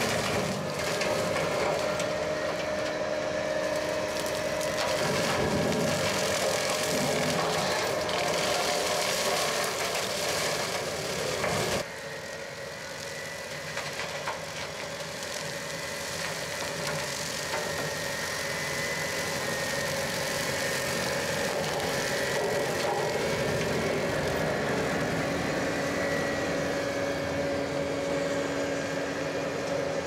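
Bobcat T770 compact track loader's diesel engine running under load while its high-flow hydraulics spin a heavy-duty direct-drive brush mower cutting brush and then grass. A steady drone with a constant whine, a little quieter from about twelve seconds in.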